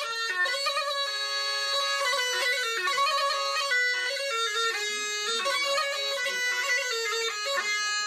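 Bagpipe music: a reedy melody of quickly changing notes played without a break.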